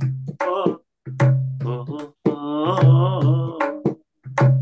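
Man singing a Hindi devotional bhajan in long, drawn-out notes, with drum strokes under the voice.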